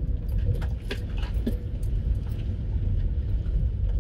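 Skoda Citigo driven slowly over a rough dirt track, heard from inside the cabin: a steady low engine and tyre rumble with scattered knocks and clicks from bumps in the track.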